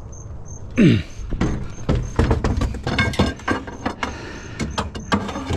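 Clattering as scrap is picked up and handled: a run of knocks and metallic rattles with some brief ringing, after a short falling-pitched sound about a second in.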